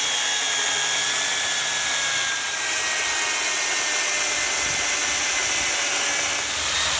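Makita UC4051A electric chainsaw cutting down through a log under load: a steady motor whine over the noise of the chain chewing through the wood, dipping briefly twice.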